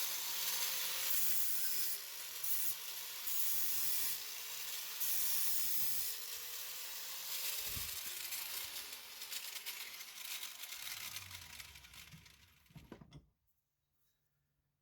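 Welding arc sizzling and crackling on the steel gauge wheel arm in on-off stretches, fading away and cutting off sharply about 13 seconds in.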